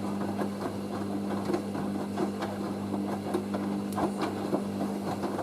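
Hoover AAA160 Whisper 1600 washing machine running its first rinse: a steady hum with the drum turning, the water swishing and the wet load knocking irregularly. The hum cuts out at the very end, as the machine heads into its first intermediate spin.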